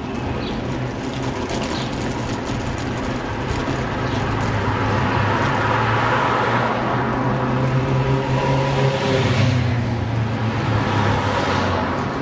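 Road traffic and wind noise heard from a moving bicycle: a steady low rumble and hiss that swells twice, around the middle and again about three quarters through.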